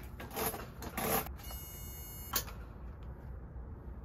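Waterproof nylon tarps rustling as they are handled next to a kerosene heater, followed by a high buzz lasting about a second that ends in a sharp click.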